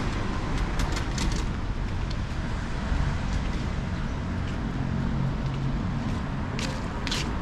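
Road traffic on a city street: a steady rumble of passing cars, with a few short crisp sounds about a second in and two more near the end.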